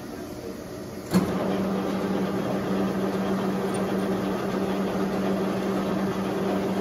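1941 Monarch 12CK engine lathe: a sharp clunk about a second in as the machine is put into motion, then it runs with a steady hum.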